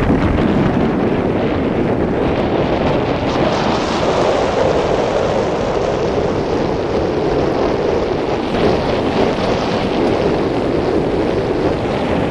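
Wind buffeting the camera's microphone: a steady, loud noise without pauses.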